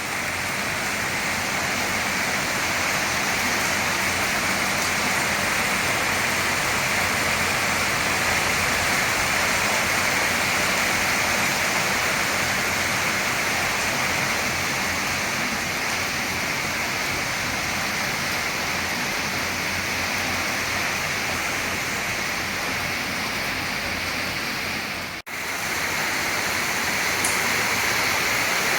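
Steady, dense rain falling, a continuous even hiss. Near the end it drops out abruptly for a split second, then resumes.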